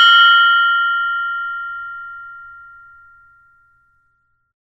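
A mindfulness meditation bell rings out after a single strike, several clear tones fading steadily over about three and a half seconds. The higher tones die away first, and one clear tone lingers longest.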